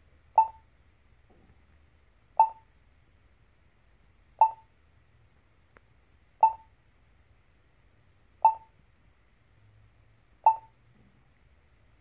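Polara XAV2E-LED accessible pedestrian push button station sounding its locator tone: a short, sharp beep repeating every two seconds, six times.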